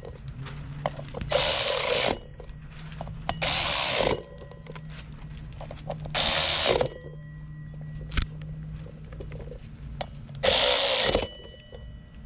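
Power driver spinning the small bolts of a minibike's rear sprocket down into the hub in four short bursts, each under a second and a few seconds apart, running them down rather than torquing them.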